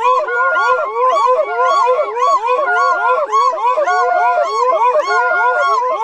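A group of men singing and calling together in high falsetto voices: many quick rising-and-falling whoops overlapping, a few per second, with some longer held notes now and then.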